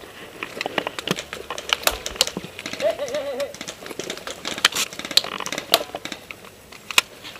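Irregular sharp clicks and snaps, scattered through the whole stretch, with a distant voice calling out briefly about three seconds in.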